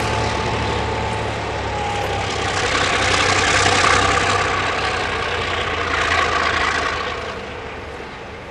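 Two diesel-electric locomotives, ZR2100 leading DQ2006, under power hauling a loaded coal train: a steady engine drone with a hiss that swells about three to four seconds in and again around six seconds, then eases off near the end.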